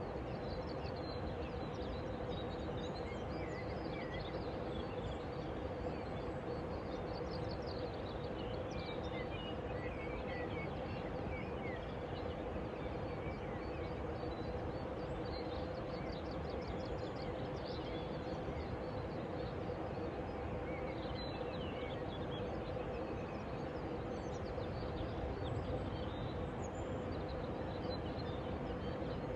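Steady outdoor ambience with a constant low hum under it, and small birds chirping now and then.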